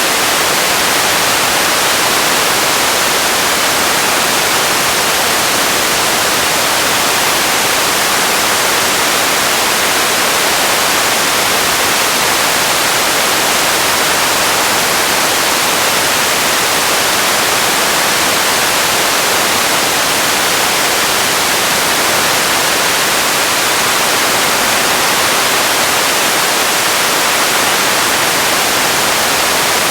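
Radio static: a steady, loud hiss of white noise, unchanging throughout, with no tones, voices or crackles in it.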